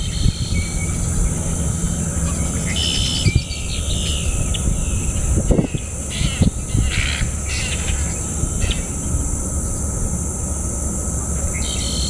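Steady high-pitched insect drone, like crickets, with scattered short bird chirps about three seconds in and again around six to eight seconds, over a constant low rumble.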